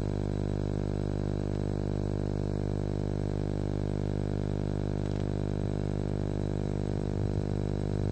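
Steady electrical hum with a buzz of many evenly spaced overtones and a faint high whine, unchanging throughout: the background noise of an old recording of a TV race broadcast.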